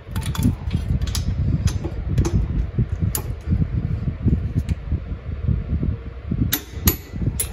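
Steady low fan-like noise, with a few sharp, irregularly spaced metallic clicks of a ratchet and socket on a brake caliper bracket bolt, several in the first three seconds and a cluster near the end.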